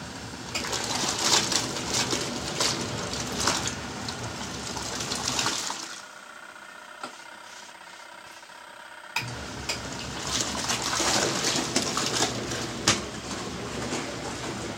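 Kuppet portable washing machine's wash tub agitating a load of towels in soapy water, with water churning and sloshing. It stops for about three seconds around the middle and then starts again: the wash pulsator's run, pause and reverse cycle.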